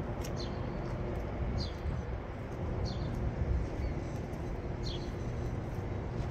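A small bird giving short, high, falling chirps about every second or so, over a steady low outdoor rumble.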